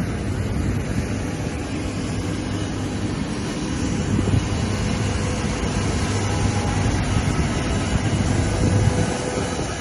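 Steady low rumble and hiss of airport ramp noise with a faint steady machinery hum beneath it.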